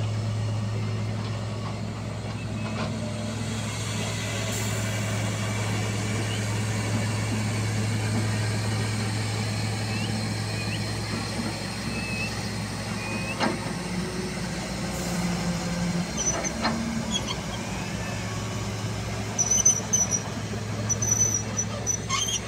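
Heavy diesel engine of a JCB tracked excavator running with a steady low drone as it works its hydraulic arm beside a tipper truck. There are a few sharp knocks midway, then a burst of clattering near the end as the bucket tips its soil into the truck's steel body.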